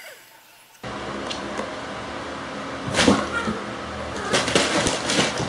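Cats scuffling and leaping on a wooden floor: a few short thumps and scrabbles, the strongest about three seconds in and a cluster near the end, over steady background noise.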